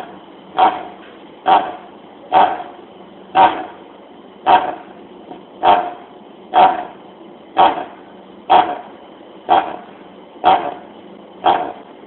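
A dog coughing with a honking, goose-like cough, over and over at about one cough a second. This goose-honk cough is a sign typical of tracheal collapse.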